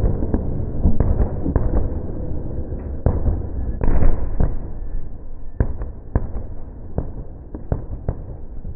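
Fireworks display: aerial shells bursting one after another in a rapid run of sharp bangs, the loudest about four seconds in, the bangs growing quieter over the last few seconds.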